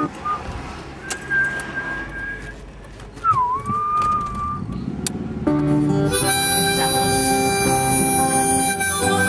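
Music: a sparse passage with a few long melody notes, one sliding down and back up, then the full arrangement comes in abruptly about five and a half seconds in.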